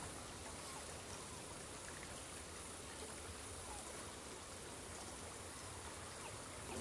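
Small woodland stream flowing over a shallow sandy bed, a steady rush of water, with a brief knock at the very end.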